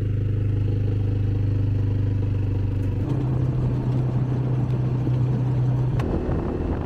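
Vehicle engine running steadily while driving; its note steps up in pitch about halfway through, then turns rougher and more rattling after a click near the end.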